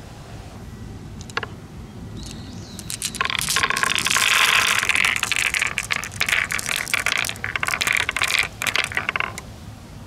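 Dozens of glass marbles clattering and clicking against one another as they are dropped by hand into a pile on a wooden wave-slope tray. The clicking is dense and loud from about three seconds in and dies away near the end, with one lone click before it.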